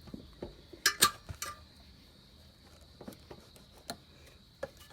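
Metal clinks and taps as a motorcycle's steel rear axle is twisted and worked out through the rear brake assembly: two sharp clinks about a second in, then a few lighter taps.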